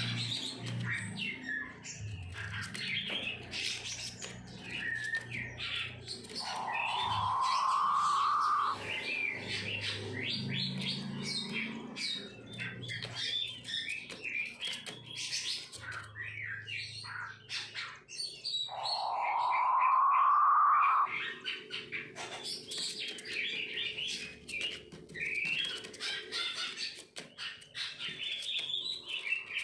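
King quail (puyuh batu) giving its rasping 'snoring' call twice, each about two seconds long and rising in pitch, over constant high chirping from birds.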